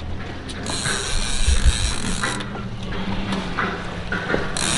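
Conventional fishing reel being worked against a hooked fish, its mechanism running in two stretches: the first starts just under a second in, the second near the end.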